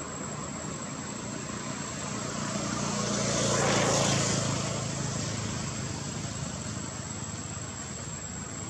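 A passing engine, swelling to its loudest about four seconds in and then fading away, over a steady high-pitched whine.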